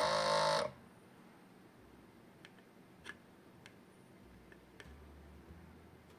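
Small electric vacuum pump of a home-made desoldering iron buzzing in one short burst of under a second, sucking melted solder from a circuit-board joint. A few faint clicks follow.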